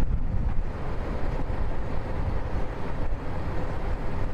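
Wind buffeting the microphone outdoors, a loud, uneven low rumble with a broad hiss over it.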